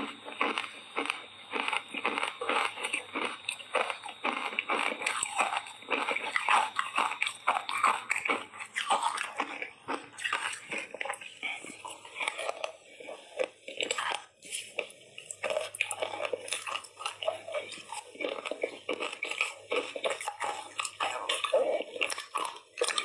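Ice coated in matcha powder being bitten and chewed: a continuous run of sharp crunches, several a second.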